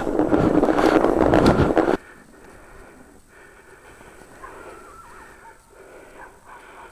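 Loud, rough rushing and crunching noise of the camera moving through snow behind a bike. It cuts off abruptly about two seconds in, leaving only faint, quiet outdoor sound.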